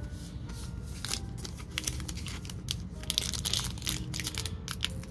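A Topps Big League baseball card pack's wrapper being torn open and crinkled by hand: an irregular run of crackles and rips, thickest a little past the middle.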